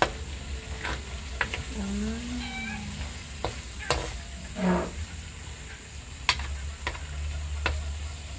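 Metal spatula stirring and scraping corned beef in a wok, tapping the pan with sharp clicks now and then over a light sizzle of frying. Two short meow-like calls come through, about two seconds in and again near the middle.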